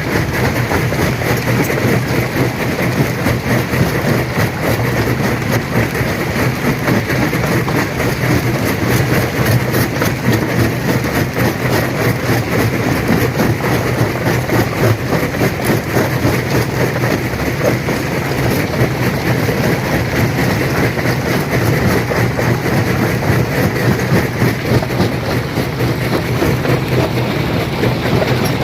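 Stone crusher running under load, a steady low machine hum beneath a dense, unbroken clatter of rock being crushed.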